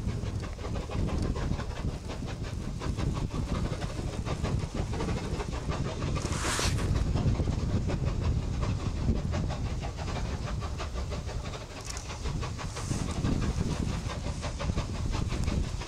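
Two QJ-class 2-10-2 steam locomotives double-heading a heavy freight train up a steep grade, their chimney exhaust beats coming fast and steady. A short hiss breaks in about six and a half seconds in.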